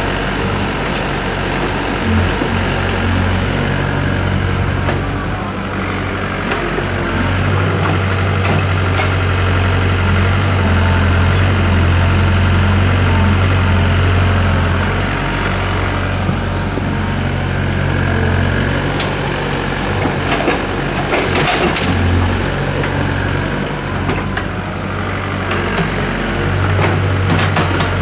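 Doosan DX55W wheeled excavator's diesel engine running steadily, its low hum swelling at times as the hydraulics work the arm and bucket. Around two-thirds of the way through there are sharp knocks and scrapes as the steel bucket digs into the soil.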